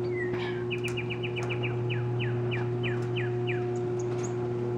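LiftMaster 8365 half-horsepower AC chain-drive garage door opener raising the door, its motor running with a steady, pretty quiet hum. A bird calls over it with a quick series of short downward-sliding chirps.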